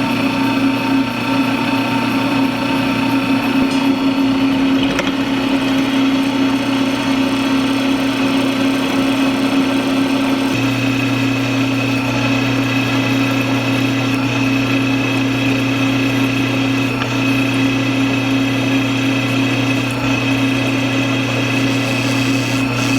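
Drill press motor running steadily while pilot-drilling a mounting plate; a low part of the hum grows louder about ten seconds in.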